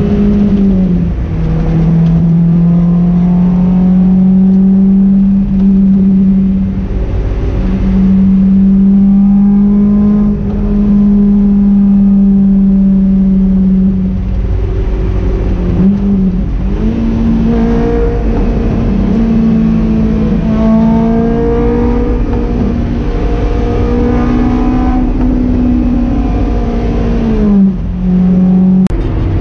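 Honda S2000's four-cylinder engine running at a steady cruise, a constant drone whose pitch steps up and down several times as the throttle or gear changes.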